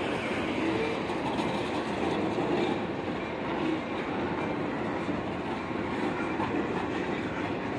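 Freight train passing: covered hopper cars rolling by, a steady noise of steel wheels running on the rails.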